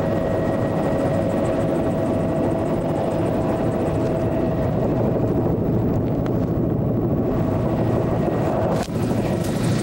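Steady engine and airframe noise inside a low-flying survey aircraft's cabin, with a constant drone carrying a couple of steady tones. A brief dropout with a click comes just before the end.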